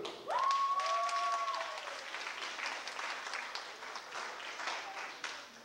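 Audience applause in a hall, a dense spread of clapping that fades away near the end. Near the start one long, high held call rings out over the clapping.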